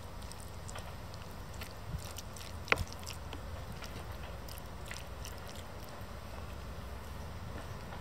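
Wooden spoon stirring thick, sticky rice and black bean sauce in an aluminium Trangia mess tin: wet stirring sounds with scattered light clicks of the spoon against the tin, and one sharper knock a little under three seconds in.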